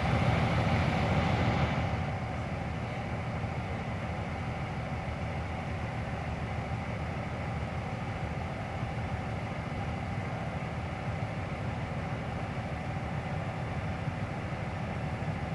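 Freight train of autorack cars rolling past, a steady rumble of wheels on rail, louder for the first two seconds and then even.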